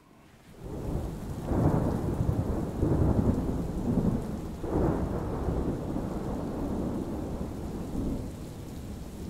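Wind buffeting the microphone: an uneven low rumble that swells about a second and a half in and again near five seconds, then eases off.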